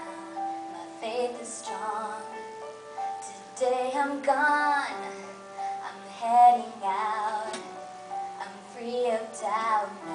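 Live band playing a slow song: long held chords under a melody line that rises and falls with vibrato in several swelling phrases, loudest a little after the middle.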